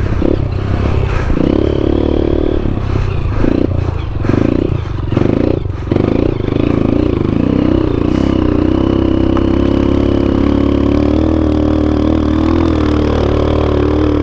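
Honda CRF230F dirt bike's air-cooled single-cylinder four-stroke engine under way on a trail, the throttle opened and closed in short surges for about eight seconds, then held at a steady pitch. A few knocks come through in the first half.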